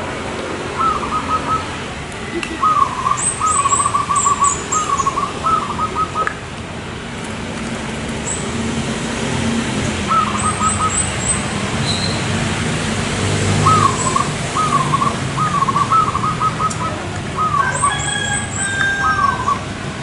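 Zebra doves (perkutut) cooing in phrases of quick, rolling staccato notes, one run in the first few seconds and a longer one from about halfway on. High thin chirps from other birds break in now and then, over a steady low background rumble.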